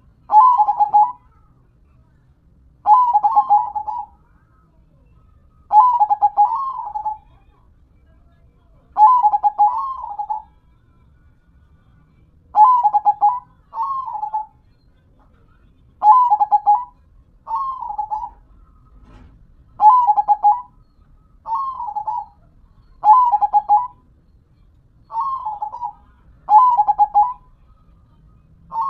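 Zebra dove (perkutut) singing its manggung: a series of rolling, bubbling coo phrases, each about a second long, repeated every two to three seconds.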